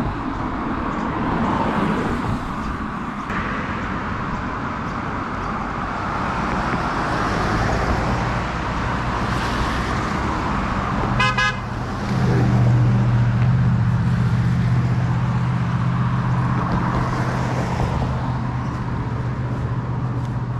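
Cars driving across a road bridge, their tyre and engine noise swelling and fading as they pass, with a short horn toot a little past halfway. Right after it a steady low drone of traffic sets in and runs on.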